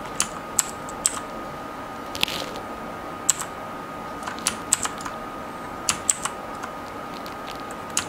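Outemu Blue switches of a Zebronics Max Pro mechanical keyboard clicking as single keys are pressed now and then, about a dozen sharp clicks at irregular intervals.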